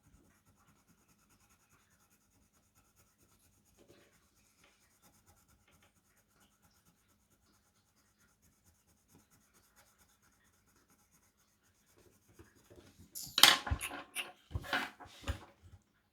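Mostly near silence, then about 13 seconds in a loud flurry of scratchy rubbing with a few knocks: a coloured pencil being worked on paper and handled.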